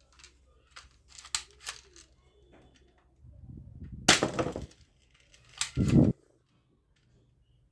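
Toy gun being handled and fired: a few light clicks, then two loud shots about a second and a half apart.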